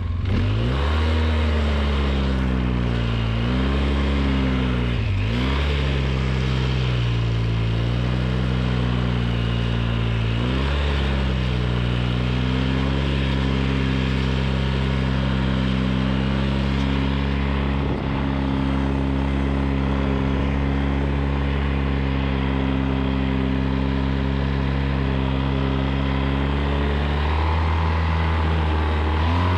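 2003 Polaris Sportsman 600 ATV's twin-cylinder four-stroke engine pulling in low range, revving up and easing off several times for the first ten seconds or so, then running at a steady speed, with a change in engine note near the end.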